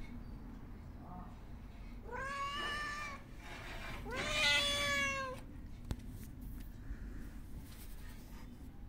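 Stray cat meowing: two long, drawn-out meows about two seconds apart, the second one louder, with a faint short one before them.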